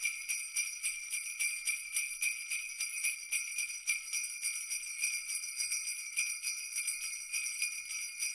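Sleigh bells jingling on their own, shaken in a quick, even rhythm.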